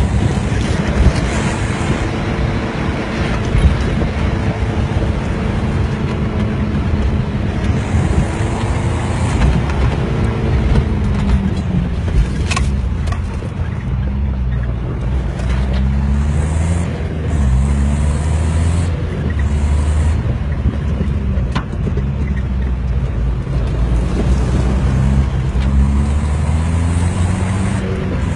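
A Nissan Terrano I's engine and drivetrain heard from inside the cabin while it is driven on a dirt track. The engine pitch climbs and drops again and again, over steady road noise, with a couple of sharp knocks.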